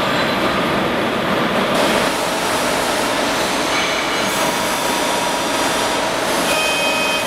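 Steady, loud mechanical noise of machinery running in a metal-fabrication workshop, with a few brief high whines.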